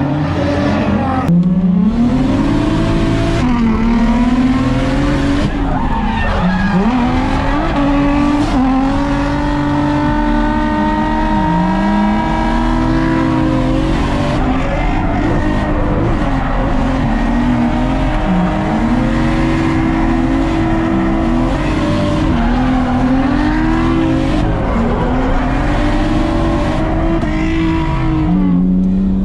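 Drift car engine revving hard, its pitch climbing and dropping again and again as the driver works the throttle, with tyres squealing through the slides.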